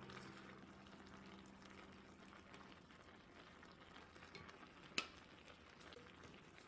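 Faint sizzling of food frying in a pan, with a single sharp click about five seconds in.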